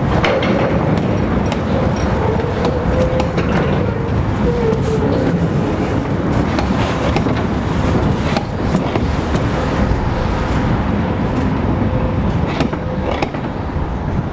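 Continuous-welded-rail engineering train, rail-carrying wagons and a rail-handling vehicle, rolling slowly past with a steady rumble of wheels on track and occasional sharp clicks and knocks as the wheels cross rail joints and points.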